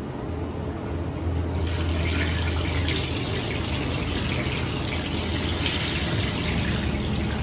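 Gram-flour batter dripping through a perforated ladle into hot oil in a kadai, sizzling as the boondi fry. The sizzle starts about a second and a half in and then keeps on steadily, over a low hum.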